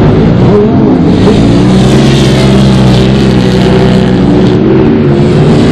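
Side-by-side UTV race engines running hard around a dirt short course. Their pitch dips and climbs again about a second in, then holds at high revs.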